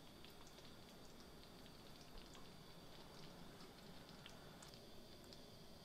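Near silence: room tone with a faint steady high hum and a few scattered faint ticks.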